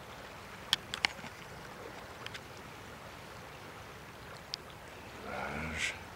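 River water running with a steady rush, broken by a few sharp clicks about a second in and a short, louder sound near the end.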